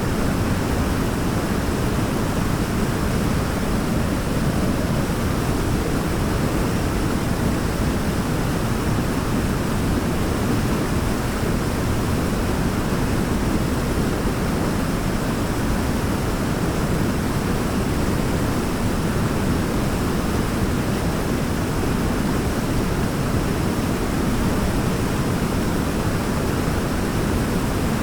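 Waterfall: a steady, even rush of falling water with a deep low rumble and no breaks or changes.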